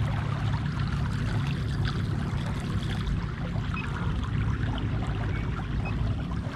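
Water washing and trickling along the hull of a kayak moving through calm river water, with a steady low hum underneath.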